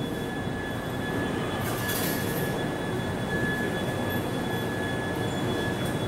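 A Toyama Chiho Railway 10030 series electric train standing at the platform with its onboard equipment running. There is a steady hum and a thin, constant high whine.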